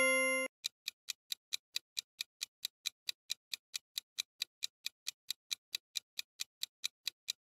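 Countdown timer sound effect: clock-like ticks, about three a second, evenly spaced. A chime rings out and fades in the first half second before the ticking starts.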